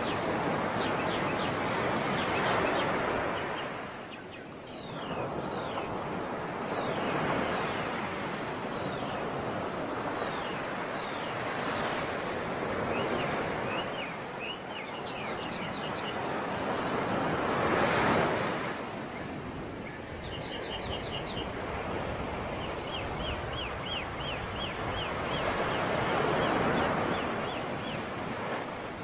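Sea waves washing on a shore, swelling and ebbing every few seconds, with small birds chirping in quick repeated notes over the surf.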